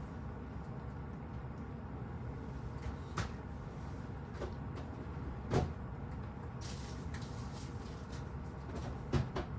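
A few scattered short knocks and clicks over a steady low background hum, the loudest about halfway through and two more close together near the end.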